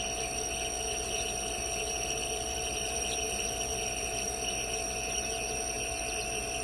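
Steady hum and hiss with faint peeping from young chicks in a brooder.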